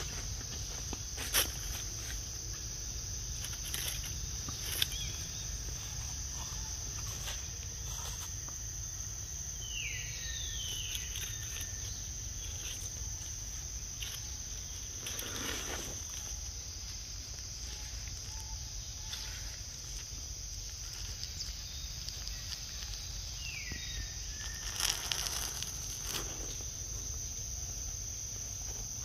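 Steady high-pitched drone of insects. Two short chirps slide down in pitch, about ten seconds in and again near the end, with a few sharp clicks and rustles along the way.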